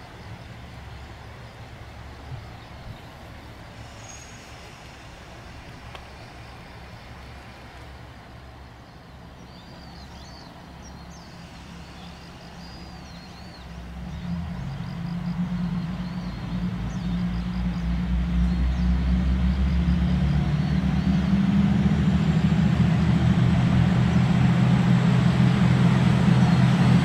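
Two-car JR West KiHa 120 diesel railcar idling at the platform, then its diesel engines throttle up about halfway through as it pulls away, growing steadily louder as it comes closer.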